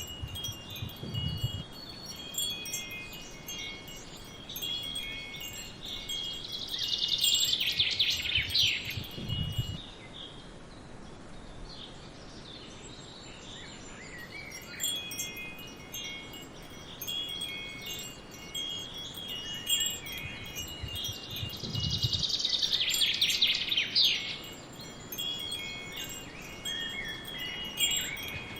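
Metal wind chimes ringing, several tones overlapping. The ringing swells twice into a louder, denser flurry, and a brief low rumble comes now and then.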